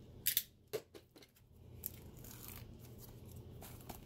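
Plastic shrink-wrap on a steelbook case being picked at and torn open by hand: a few short sharp crackles in the first second or so, then quieter handling.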